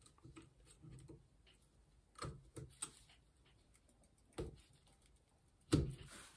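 Small metal clicks and ticks of a pick prying a snap ring out of a Shimano Front Freewheel System rear sprocket cluster, a handful of sharp ticks spaced irregularly, the loudest near the end.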